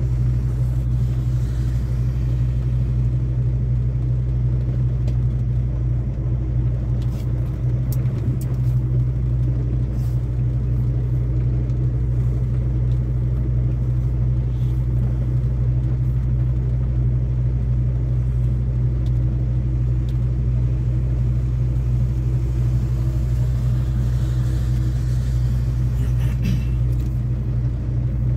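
Semi-truck's diesel engine and road noise heard from inside the cab while driving: a steady low drone with a few faint ticks.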